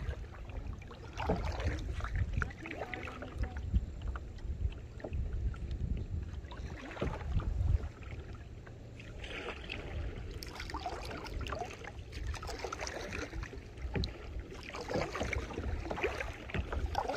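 Kayak paddle strokes dipping and splashing in lake water, in irregular swells a few seconds apart.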